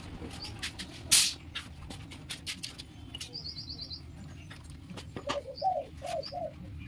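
Scattered light clicks and taps, the loudest one about a second in, with a short bird chirp around three seconds in and a bird cooing in three short notes near the end.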